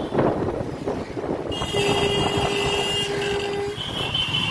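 Riding noise from a Hero motorcycle moving through city traffic, mostly a steady rumble with wind on the microphone. About two seconds in, a vehicle horn sounds one steady note for about two seconds.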